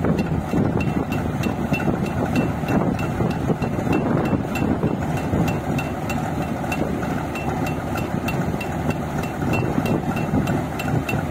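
Rice combine harvester running while its unloading auger pours paddy grain into a truck: a steady machinery din with a regular knock about three to four times a second.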